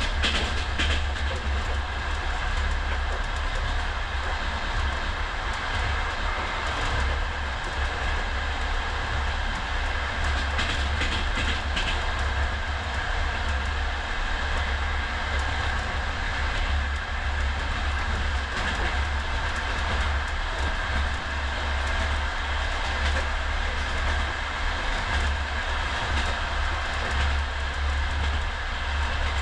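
Inside a compartment sleeping car of a moving passenger train: the steady low rumble of the carriage running on the rails, with a few clacks of the wheels over rail joints now and then.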